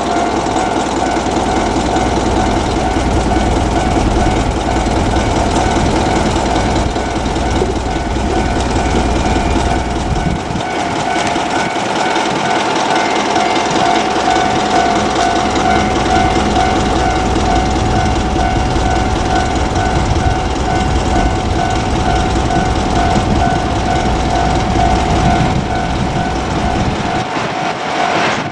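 Level-crossing alarm ringing steadily while a train hauled by two JR DE10 diesel locomotives passes, their engines giving a deep rumble. The rumble dips briefly about ten seconds in and falls away near the end.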